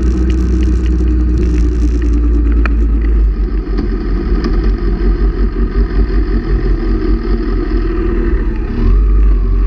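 Motorcycle engine running, heard close up from the bike: it eases off with an uneven low rumble in the middle, then picks up again with a rising note near the end.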